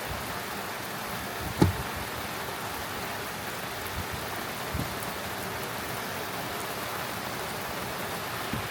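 Heavy rain falling steadily, an even hiss. A single sharp knock about a second and a half in.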